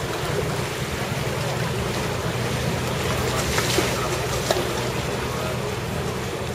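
Canal tour boat's engine running with a steady low hum under a wash of water and wind noise, with a couple of light knocks about halfway through.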